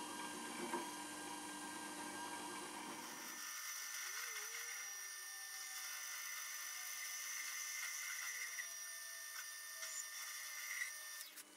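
Hobby metal lathe running steadily with a motor whine while facing off the end of an aluminium bar. A low hum drops out about a third of the way in.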